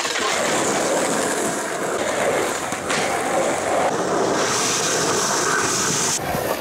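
Skateboard wheels rolling over asphalt through dry fallen leaves: a steady rolling noise mixed with leaf rustle, which changes abruptly about three seconds in and again near the end.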